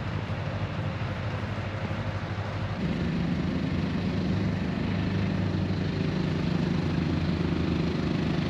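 Engine running at idle: a steady low hum that gets louder about three seconds in and then holds.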